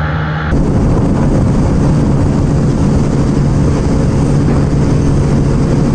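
Small single-cylinder commuter motorcycle running flat out at highway speed, a steady engine hum under heavy wind rush on the rider's helmet-mounted mic. About half a second in the sound changes abruptly and then stays steady.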